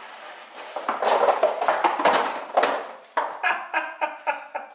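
Paper-pulp egg cartons rustling and scraping as they are pushed into a stack on a cabinet shelf, followed near the end by a quick run of about six short pitched sounds, roughly three a second.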